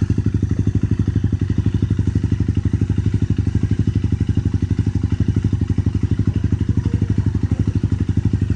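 Red-and-white dual-sport motorcycle engine idling steadily, an even pulsing of about a dozen beats a second with no revving.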